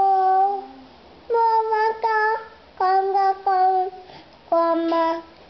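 A toddler singing a simple tune in short, steady held notes, about four brief phrases with short pauses between them.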